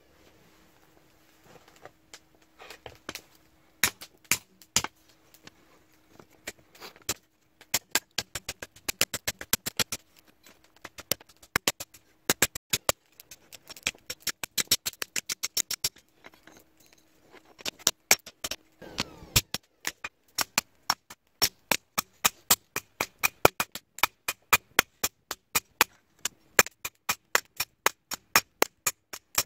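Hand hammer striking red-hot bearing steel on an anvil: sharp blows starting a few seconds in, first in quick runs with short pauses, then settling into a steady beat of about two blows a second.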